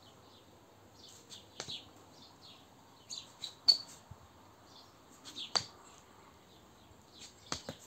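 Small birds chirping in short, scattered calls, with a few sharp clicks mixed in. The loudest chirp comes about halfway through.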